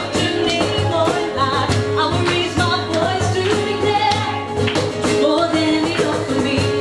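Live worship song: a woman's singing over a strummed acoustic guitar, with a steady hand-played cajon beat.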